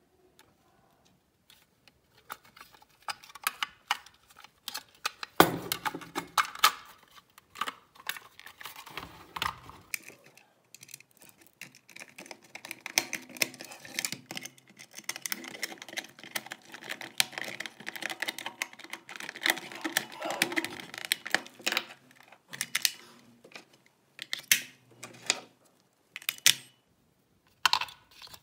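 Irregular plastic clicks, taps and rubbing from handling and reassembling a Garrett Ace 250 metal detector's plastic control housing and fitting AA batteries into its battery compartment. The clicking starts about two seconds in.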